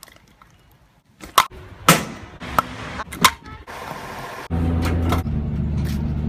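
Several sharp knocks of a plastic drink bottle being flipped and landing, four in quick succession, then a loud steady low drone from about four and a half seconds in.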